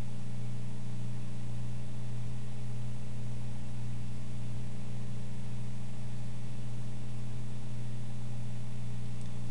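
A steady, unchanging low hum, with no other events.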